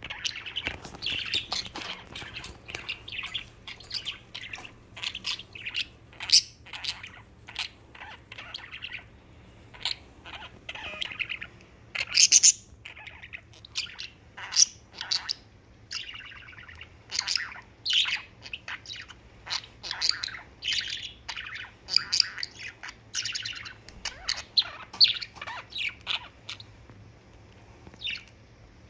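Budgerigars chirping and warbling in a steady stream of short, quick calls.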